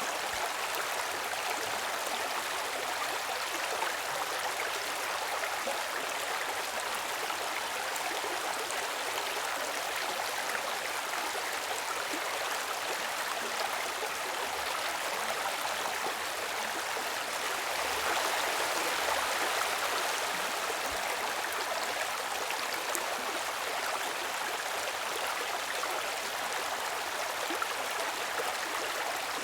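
Water in a stream flowing steadily, an even rushing sound with no breaks, growing a little louder for a couple of seconds about two-thirds of the way through.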